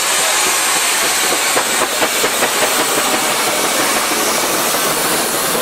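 Showman's steam road locomotive moving slowly past, its steam hissing loudly and steadily, with a few knocks from the engine about two seconds in.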